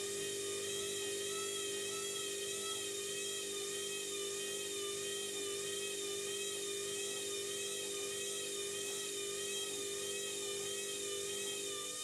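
Candy front-loading washing machine on a high-speed spin, its motor and drum giving a steady high whine with a gentle regular wobble in pitch.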